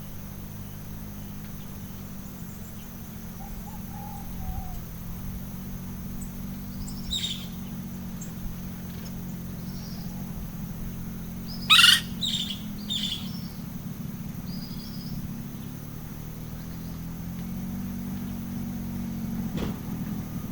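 Wild birds calling in a tropical forest: a few short, scattered calls, the loudest about twelve seconds in and followed quickly by two more. Underneath runs a steady low rumble and a thin, steady high insect tone.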